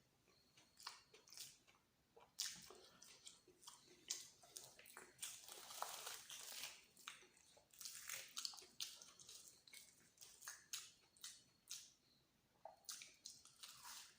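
Close-miked eating sounds: a person chewing and biting into luchi, egg masala and green chili, making many short wet clicks and smacks. The clicks are busiest from about two to nine seconds in.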